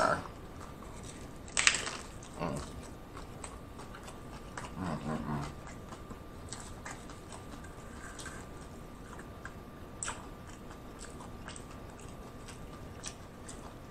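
Biting into and chewing a crunchy hard-shell taco close to the microphone. A sharp crunch about one and a half seconds in is the loudest sound, followed by quieter crackling chews and scattered small clicks. There is a short low hum from the eater about five seconds in.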